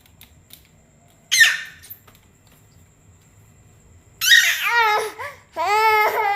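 A baby's high-pitched squeals and babbling: one short falling shriek about a second in, then a run of drawn-out, wavering squeals from about four seconds in.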